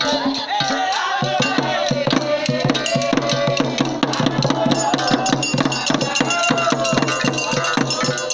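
Traditional Ivorian drumming on wooden hand drums with skin heads, a fast, dense rhythm of strokes, with voices singing over it.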